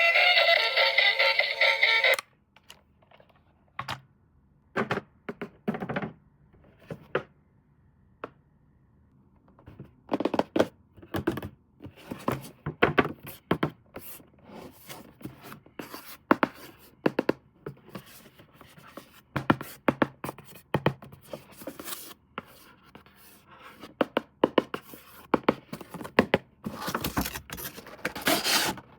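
Music that cuts off about two seconds in, then irregular taps, clicks and scrapes of toy RC cars and their packaging being handled during unboxing, growing busier from about ten seconds in.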